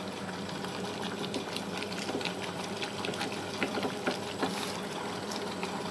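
Squid adobo simmering in its ink sauce in a pan, with small scattered clicks of a ladle stirring through the squid, over a steady low hum.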